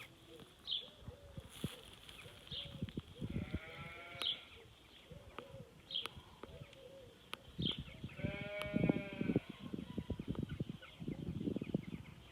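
Bleating twice, each call about a second and a half long, the second one louder, over gusty wind rumbling on the microphone. A short high chirp repeats about every one and a half seconds throughout.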